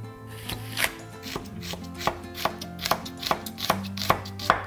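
Chef's knife chopping fresh garlic on a wooden cutting board, a run of sharp knocks at about three a second.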